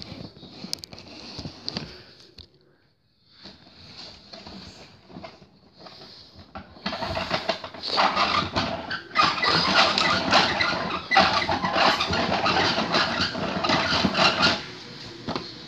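Toy garbage truck's engine sound effect playing loudly for about eight seconds from about seven seconds in. Before it come quieter clicks and knocks of the plastic toy being handled.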